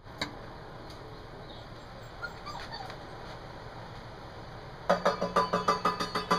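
A few faint puppy whimpers, then about five seconds in a rapid run of strikes on a stainless steel food tray, the metal ringing between blows, several a second: the dinner-time signal for the puppies.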